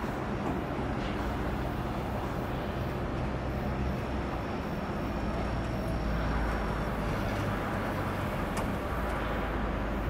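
Steady low rumble and hum of shipyard machinery, a little louder from about six seconds in, with one brief click near the end.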